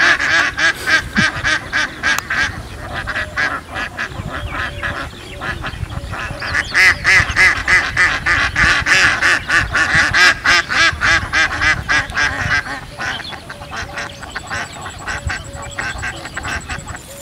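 A flock of ducks quacking in a rapid, continuous chatter, loudest in the middle and dying down over the last few seconds.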